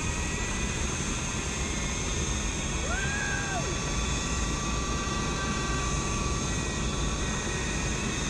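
Zipline trolley pulleys running fast along a steel cable, with a steady whine over a rush of wind noise from the ride.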